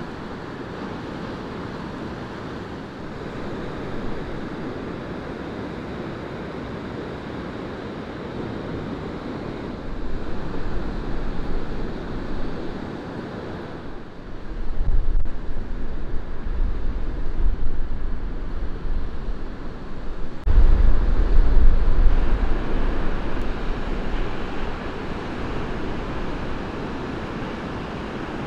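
Ocean surf breaking and washing up a beach: a steady rush of whitewater, with louder stretches and a deep rumble through the middle.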